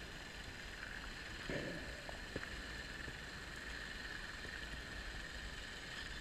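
Underwater ambience picked up by a dive camera in its housing: a steady hiss with a faint high whine, a brief low rush of sound about a second and a half in, and a couple of faint clicks.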